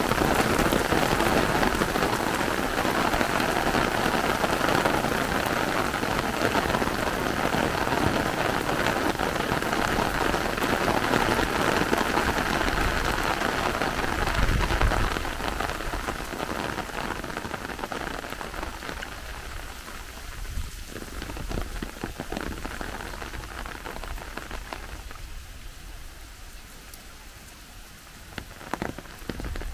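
Heavy rain drumming on an umbrella overhead and splashing on flooded pavement. It is loudest in the first half and eases about halfway through.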